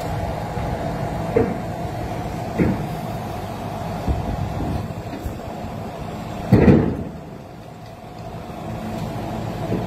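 Hook-lift truck's diesel engine running steadily, with short metal clanks about a second and a half and two and a half seconds in. A louder clank about six and a half seconds in is followed by a quieter stretch.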